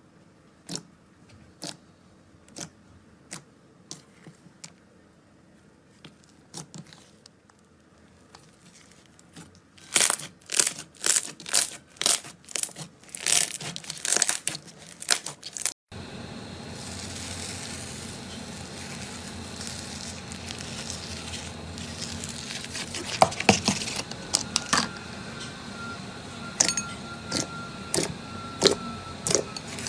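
Slime being squeezed and pressed by hand, giving crackling clicks and pops: faint and evenly spaced at first, loud and rapid from about ten seconds in, then, after an abrupt change, scattered clicks over a steady hiss.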